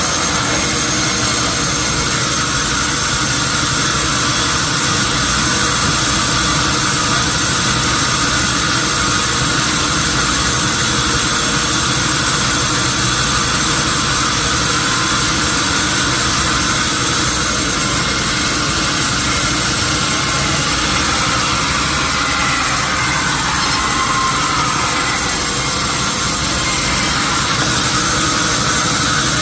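Sawmill machinery running steadily, with a slight change in pitch about three-quarters of the way through.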